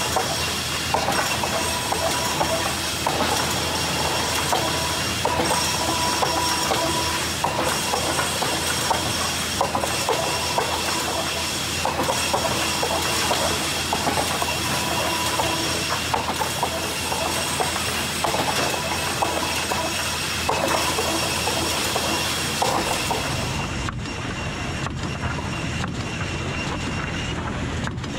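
High-speed center split resaw running and ripping a steady stream of kiln-dried pine boards. Each board gives a cutting burst of about a second, one after another every second or two, over the constant whine of the running saw. Near the end the sound turns duller and lower.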